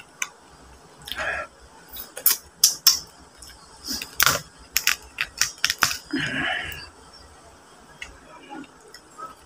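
Cooked mud crab shell being cracked and pulled apart by hand: a string of sharp cracks and clicks, loudest between about two and six seconds in.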